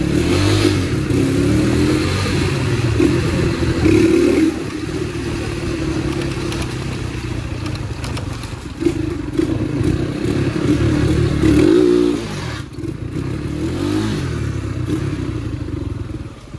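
Yamaha YBR motorcycle's single-cylinder four-stroke engine under way, its revs rising and falling several times as the rider accelerates and eases off. The revs fall away sharply about twelve seconds in, and the engine settles to a steadier low beat near the end.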